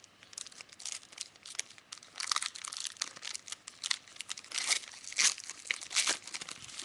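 Crinkling and tearing of a trading-card pack wrapper as it is torn open and handled, a run of irregular crackles with louder rips about two seconds in and again around five and six seconds.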